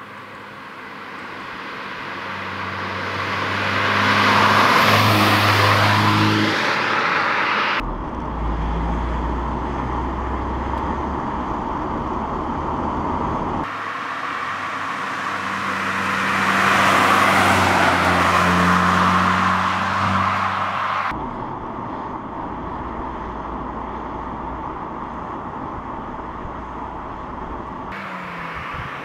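Audi S1's 2.0 TFSI turbocharged four-cylinder engine in a cut-together sequence: twice the car accelerates past, swelling in loudness with the engine note rising, each pass cut to a steadier, low engine drone; another pass begins near the end.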